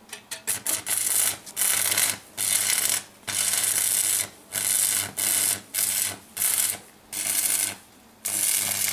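Arc welding with a stick electrode on an old-style transformer welder. The arc is struck with a few quick pops, then crackles and sizzles in runs of half a second to a second, broken by short pauses, with a low hum under each run.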